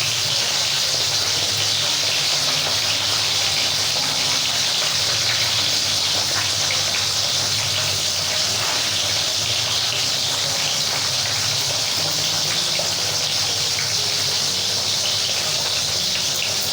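Water rushing steadily, an even hiss with no pause.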